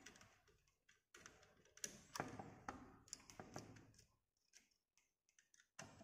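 Faint, irregular clicks and taps of fingers handling a link wire at the terminals of a DOL motor starter, pulling it off the contacts.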